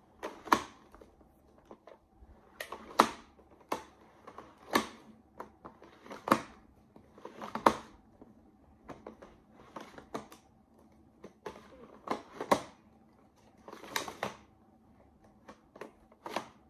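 Giant plastic Rubik's cube being twisted by hand, its big layers clacking as they turn and knock into place, with a sharp clack every second or two and softer clicks between.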